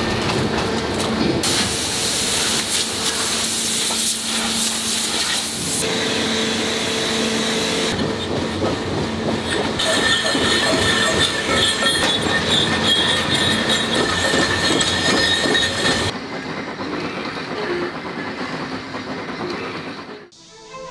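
Heavy forging-plant machinery: loud hissing and rumbling noise with steady whining tones, changing abruptly every few seconds and quieter for the last few seconds.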